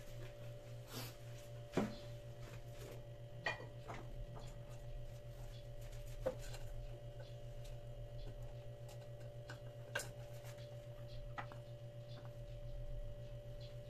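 A low, steady hum with a few sharp clicks and knocks from food trays being handled. Near the end comes the soft sound of cooked rice being scooped onto a tray with a wooden spoon.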